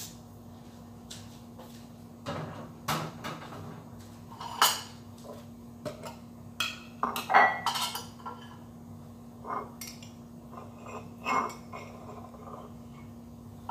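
Kitchenware being handled on a counter: irregular clinks and knocks of dishes and cutlery, the loudest about four and a half seconds in and again around seven to eight seconds, over a faint steady hum.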